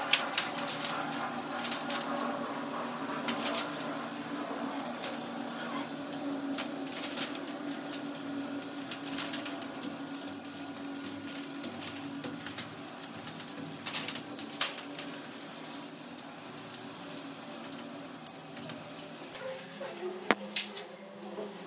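Underfloor-heating pipe being handled and laid over reflective foil film: scattered sharp clicks and crinkles over a steady low hum.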